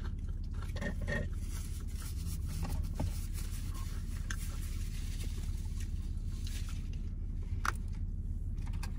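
Steady low hum inside a car cabin, with faint rustling and a few small clicks.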